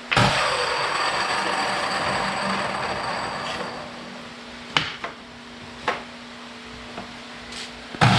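Old electric chop saw's motor switched on, starting abruptly with a whine and fading away over about four seconds. A few sharp clicks follow, then the motor starts again just before the end.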